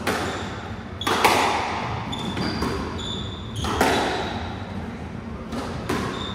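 Squash rally: a series of sharp smacks from racket strokes and the ball hitting the walls, echoing around the enclosed court, with short high squeaks of court shoes on the wooden floor between the shots.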